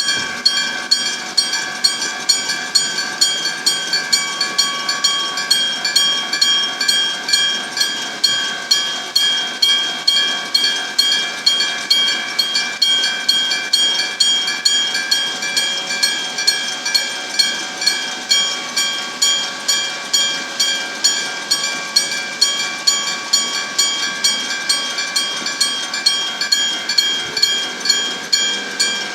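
Electric-bell (denshō-type) level crossing warning bell ringing: a mechanical hammer strikes a metal gong in a steady, even rhythm, each strike ringing on.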